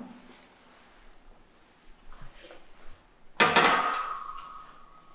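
A metal baking tray set down on a worktop with a sharp clatter about three and a half seconds in, then ringing on with a clear metallic tone that fades slowly. Faint handling knocks come before it.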